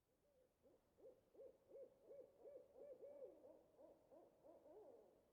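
Owl hooting: a quick series of about a dozen short notes, each rising and falling in pitch, at roughly three a second for about four seconds.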